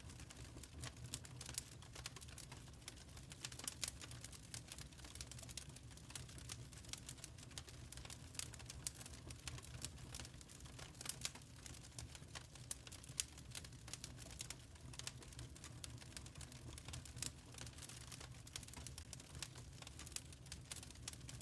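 Wood fire crackling in a fireplace: a quiet, irregular stream of sharp pops and snaps over a low steady rumble.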